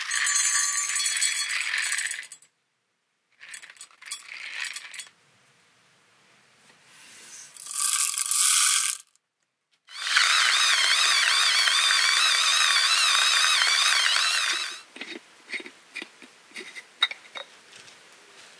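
Coffee beans poured into a stainless steel cup, rattling for about two seconds, with shorter rattles a few seconds later. Then a battery-powered Oceanrich portable electric coffee grinder runs steadily for about five seconds with a wavering whine, followed by a few light taps.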